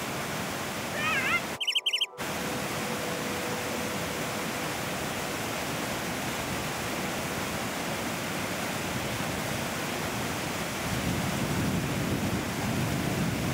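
Fast mountain stream rushing over boulders: a steady, even roar of water, a little stronger toward the end. A brief high wavering whine sounds about a second in, and the sound breaks off for a moment around two seconds in.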